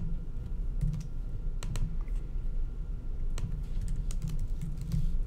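Typing on a computer keyboard: irregular key clicks over a low, steady hum.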